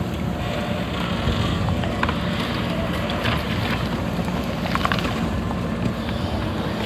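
Backhoe loader's diesel engine running steadily, with a few sharp metallic knocks over it.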